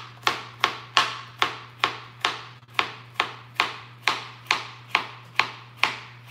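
Kitchen knife chopping raw carrots on a cutting board: a steady run of sharp strikes, about three a second.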